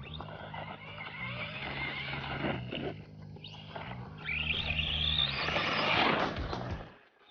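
Brushless electric RC truck running hard, the tyres churning over loose ground and the motor whine climbing sharply about four seconds in. It is loudest around six seconds, then cuts off suddenly near the end. Background music with a steady bass line plays under the first part.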